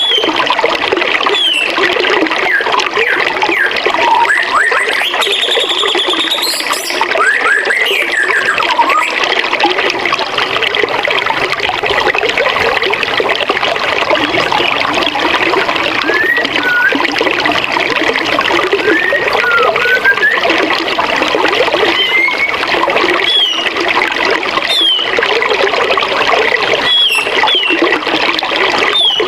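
Forest river running steadily, with birds calling over it: short chirps and whistles scattered throughout, and a rising whistle with a high trill about five to seven seconds in.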